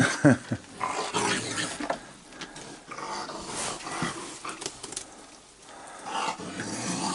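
Several raccoons squabbling over food, growling and snarling at one another in ragged bursts, with a couple of short squeals falling in pitch right at the start.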